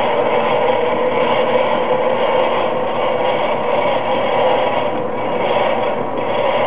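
Antique Cincinnati drill press running steadily at very slow speed, driven by a portable 1/4 HP electric motor rig through a V-belt and the press's leather flat spindle belt: a continuous mechanical whir with no pauses.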